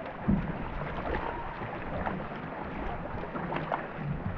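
Racing canoe under way: paddles dipping and pulling through the water about once a second, over a steady rush of water.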